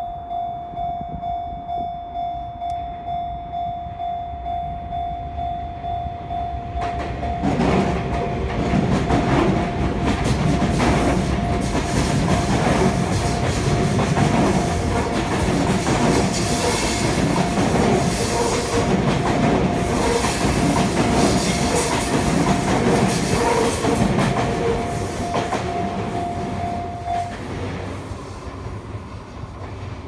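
Japanese level-crossing warning bell dinging in a steady repeating rhythm. About seven seconds in, a Sotetsu 10000 series electric train passes close by, its wheels clattering over the rail joints, and its noise fades near the end. The bell stops shortly before the end.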